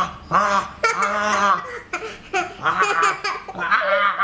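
A toddler girl laughing and giggling in a string of short high-pitched bursts, mixed with a man's playful "ah" noises.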